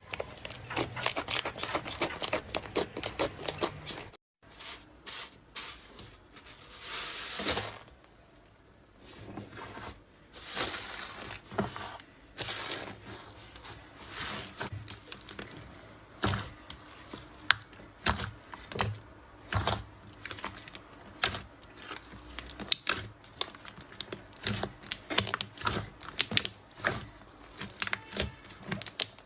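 Slime being squeezed, pressed and poked, making many irregular sharp clicks and pops.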